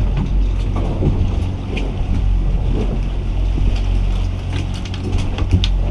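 Boat's outboard motor running steadily at trolling speed, a low even drone, with wind buffeting the microphone and water washing past the hull. A few short sharp clicks come in the second half.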